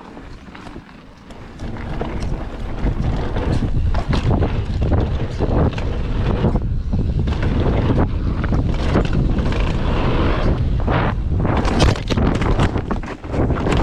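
Wind rushing over an action camera's microphone as a mountain bike speeds down a dirt trail, with the bike rattling and knocking over the rough ground. Near the end the bike crashes and clatters over the dirt.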